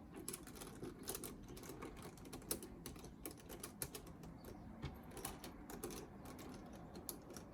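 Faint, irregular plastic clicking of a 5x5 Rubik's cube being handled, its layers turned by hand.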